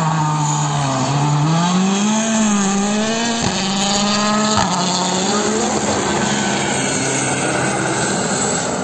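Rally car engine revving hard, its pitch climbing and dropping repeatedly through gear changes, with two sharp cracks about three and a half and four and a half seconds in.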